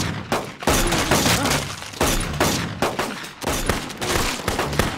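Film gunfire: irregular volleys of gunshots, several sharp reports close together and then a short pause, with bullets striking the walls and door frame.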